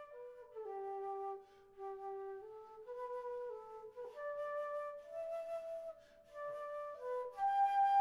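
Background music: a slow, solo flute-like melody, one held note at a time, moving up and down in small steps.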